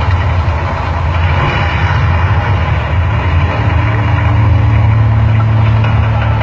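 Loud, deep rumble of the Mirage's artificial volcano show during an eruption, with a steady low hum building from about halfway through as the fire flares up again.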